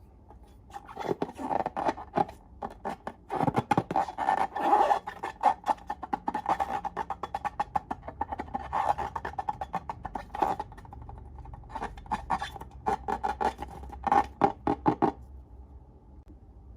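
Slime being squished and worked by hand, giving rapid irregular wet clicks and pops, in runs with short pauses, that stop near the end.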